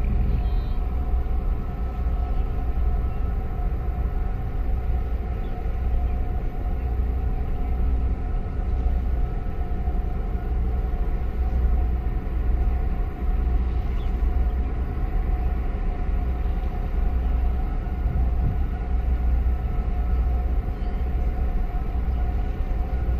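Steady low rumble with a constant machinery hum from a large container ship passing close by at slow harbour speed.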